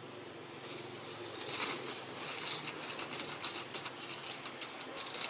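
Dry leaf litter crackling and rustling in a quick, irregular run of crisp clicks, starting about a second in.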